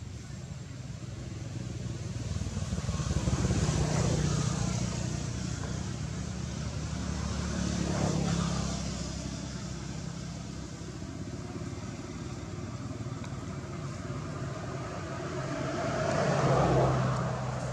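Motor vehicles passing by, engine noise swelling and fading three times: about four seconds in, about eight seconds in and near the end.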